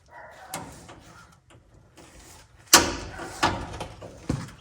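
Several clunks and knocks from tool or part handling, the loudest about halfway through.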